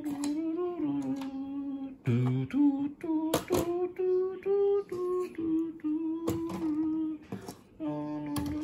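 A person humming a wavering wordless tune, with a few sharp plastic clicks as toy airplanes are set down on a plastic toy aircraft carrier deck.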